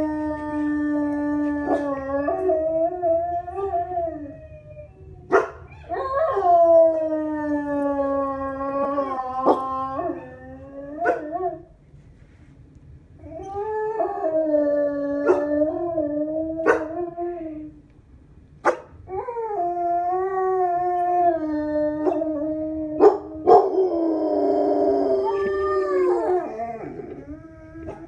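Dog howling: four long, drawn-out howls with short pauses between them, each starting higher and sliding down before holding steady. A few sharp clicks fall between and over the howls.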